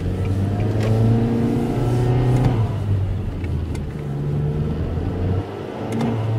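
Nissan Juke's turbocharged engine heard from inside the cabin while driving, rising in revs under acceleration, dropping about two and a half seconds in, then pulling up again and easing off near the end.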